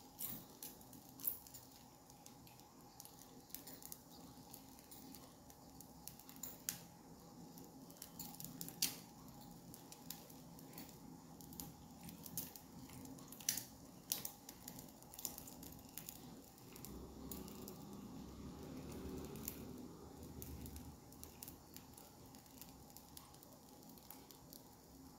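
Hand-held idiyappam press squeezing wheat dough out in strands: faint irregular clicks and squeaks from the press, a few of them sharper.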